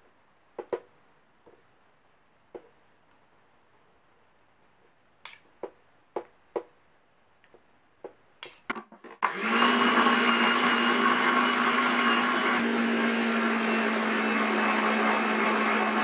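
A few light knocks as pieces of raw chicken breast are dropped into a plastic food processor bowl, then the food processor's motor switches on about nine seconds in and runs steadily, mincing the chicken with chopped onion; its tone changes a little partway through.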